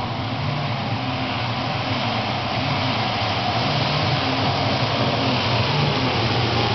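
Racing go-kart engines running at speed, a steady engine drone that grows gradually louder.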